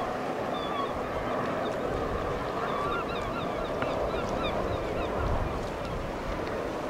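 Birds calling: a flurry of many short, quick calls over a steady rush of wind and water noise.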